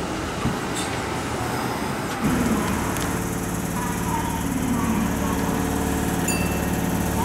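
Kintetsu electric train moving slowly through the station, giving a steady low hum with a few gliding tones. The hum starts suddenly about two seconds in, after a quieter stretch of rumble.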